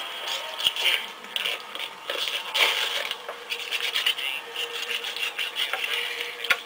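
Rough scraping and rubbing noises with scattered sharp clicks over a faint steady hum.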